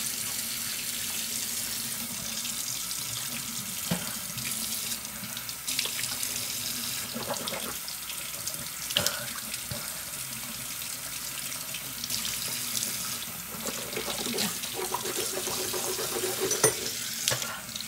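Bathroom sink tap running steadily, with a few short clicks and splashes as someone rinses at the sink, and a low burbling near the end.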